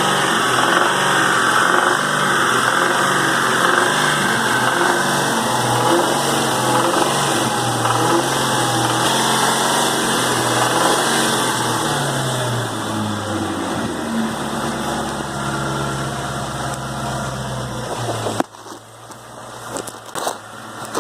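2001 Mustang SVT Cobra's 4.6-litre four-valve DOHC V8 running, its revs rising and falling for the first twelve seconds or so, then settling to a steady idle. The owner says this engine knocks under light load. It shuts off suddenly about eighteen seconds in, followed by a few scattered clicks and knocks.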